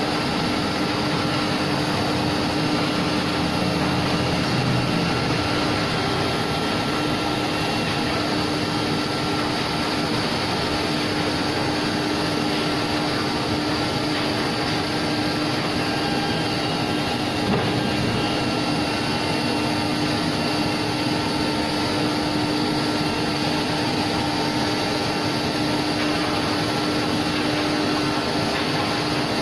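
CNC router spindle running steadily with its bit cutting into a wooden board, a constant machine whine over the noise of the cut.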